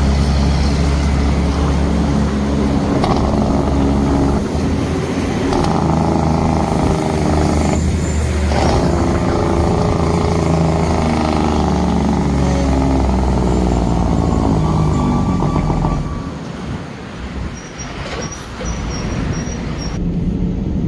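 Heavy diesel truck engine pulling away in traffic, its pitch climbing and dropping several times as it works through the gears. It quietens about sixteen seconds in and picks up again near the end.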